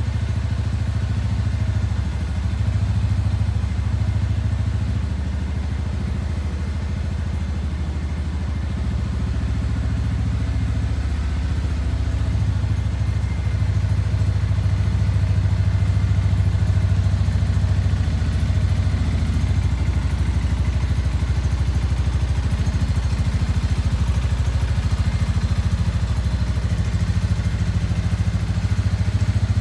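Shelby Renz 200 motorcycle engine running steadily at low revs, a little louder from about halfway through.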